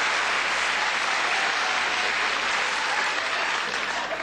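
Studio audience applauding steadily, dying down near the end.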